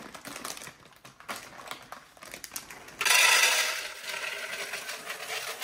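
Plastic bag crinkling, then from about three seconds in dried kidney beans pouring out of the bag into a glass canister: a sudden dense rattle that gradually tapers off.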